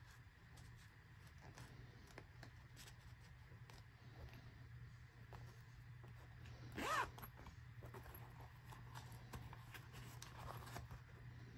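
Quiet handling of a leather wallet, with soft rubbing of leather and cards, ending with the zipper of its coin pocket being pulled open. A single short squeak with a bending pitch about seven seconds in is the loudest sound.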